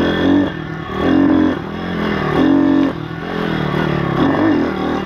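YX160 single-cylinder four-stroke pit bike engine under throttle while riding, revving up and easing off in three strong surges in the first three seconds, then running lower with a wavering pitch.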